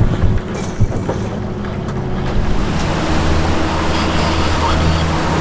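Outboard-powered boat under way, with water rushing past the hull and wind on the microphone. A couple of knocks come in the first second, and about halfway through a steady low engine drone comes in and grows louder.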